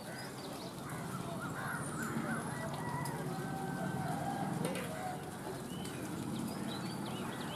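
Several birds calling in hillside forest: short chirps throughout and a run of harsh caws about one and a half to two and a half seconds in, over a steady low hum in the background.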